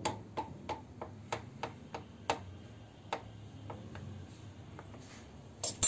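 Fork tines pricking (docking) a rolled whole-wheat pizza base so it won't puff up, each jab tapping the stone countertop beneath in light clicks, about three a second, thinning out after about three seconds. A brief louder clatter at the very end.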